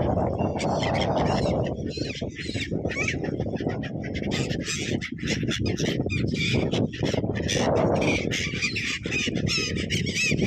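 A flock of birds squawking and honking, many short harsh calls overlapping, over a loud rushing noise that swells at the start and again near the end.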